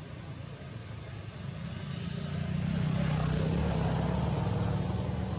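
A motor vehicle passing by, its low engine rumble swelling for a couple of seconds and then fading.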